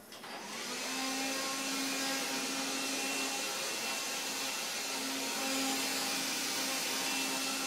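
Handheld Dustbuster vacuum switched on, its motor spinning up with a rising whine over the first second, then running steadily with a hum and airy hiss as it is swung about to suck up a fly.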